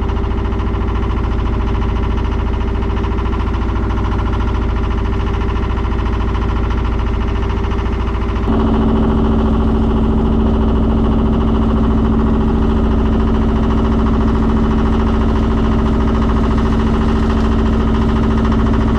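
Sailboat's inboard diesel engine running steadily under motor, a constant drone. About eight and a half seconds in the sound changes abruptly to a stronger, fuller hum.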